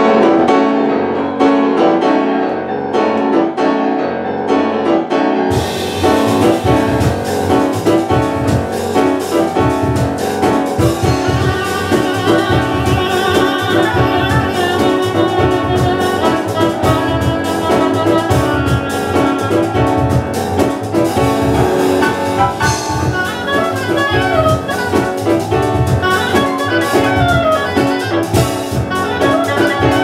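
Small live jazz group playing a fast up-tempo tune: piano alone at first, then double bass and percussion come in about five seconds in and the full band drives on.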